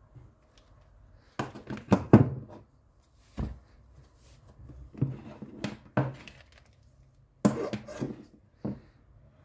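Hitachi G12SR3 angle grinder, not running, being set down on and handled against a wooden workbench: a series of knocks and short clatters, the loudest cluster about two seconds in, more around five to six seconds and near eight seconds.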